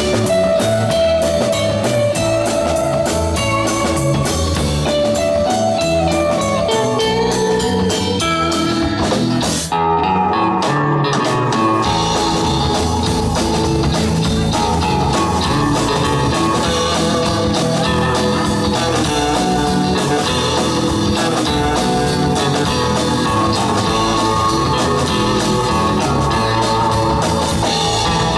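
Live rock 'n' roll band playing an instrumental passage: a lead guitar line over bass and drum kit. The cymbals drop out for about two seconds near the middle, then the full band comes back in.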